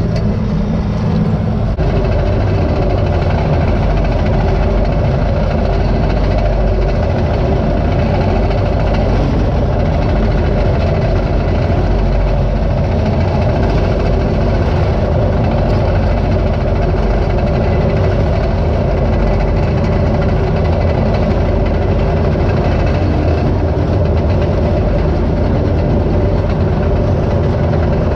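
Komatsu D39 crawler dozer's diesel engine running steadily under way, heard loud from the open operator's seat.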